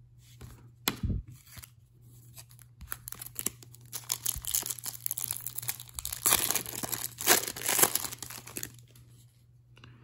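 A hockey card pack's wrapper being torn open and crinkled by hand, with cards handled in between. The tearing and crinkling is loudest from about six to eight and a half seconds in.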